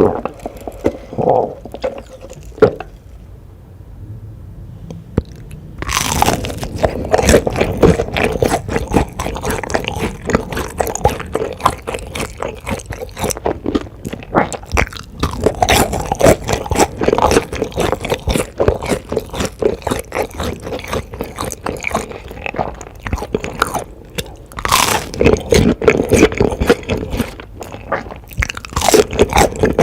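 Close-miked chewing and biting into crunchy food, with dense crackling crunches. It is quieter with a few isolated crunches at first, and turns into steady crunching about six seconds in.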